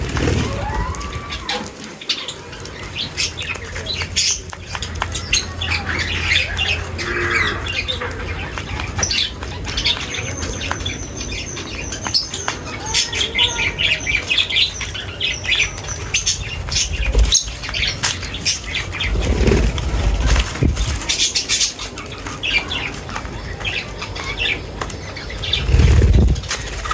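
A flock of small birds feeding, with frequent wing flutters and scattered high chirps and tweets. A few dull low bumps come later, the loudest near the end.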